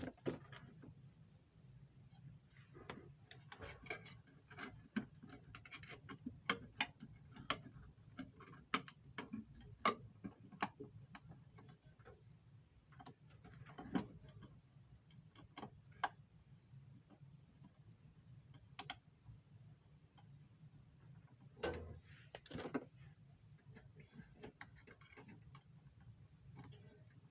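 Irregular clicks, taps and light knocks of hands handling equipment and parts at an air handler, over a steady low hum.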